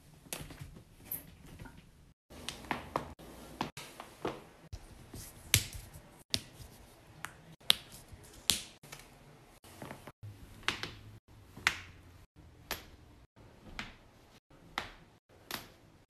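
A run of sharp joint cracks and pops, about twenty of them at irregular intervals, from people cracking their own joints: the sternum arched back in a bridge, then the knuckles of the hands.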